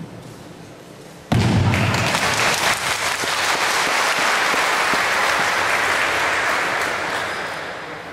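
Audience applauding, breaking out suddenly about a second in and fading away near the end.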